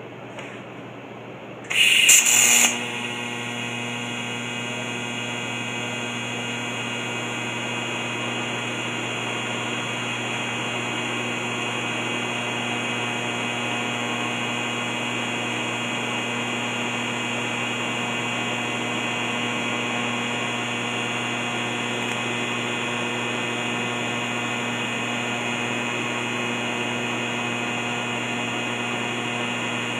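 Electric arc welding at 90 amps: a loud burst as the arc strikes about two seconds in, then the arc running steadily with a constant hum while the bead is laid.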